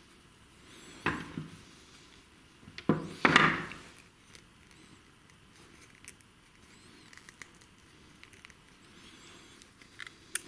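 Hand tools knocking and clattering on a wooden workbench as the starter cord is handled with pliers: a few sharp knocks, the loudest about three seconds in, then a few light clicks near the end.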